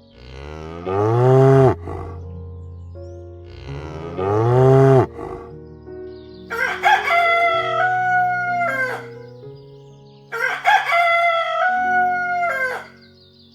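A rooster crowing twice, each crow about two and a half seconds long, holding a steady pitch and dropping at the end. Before the crows come two shorter, lower calls that rise and fall, over soft background music.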